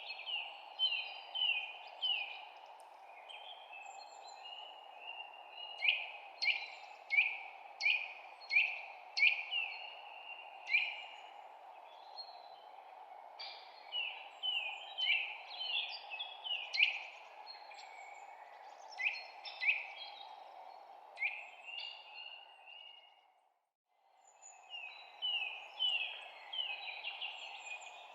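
Songbirds chirping, with quick series of short, sharply falling notes repeated over and over, above a steady low background hiss. Everything cuts out briefly a few seconds before the end, then the chirping and hiss resume.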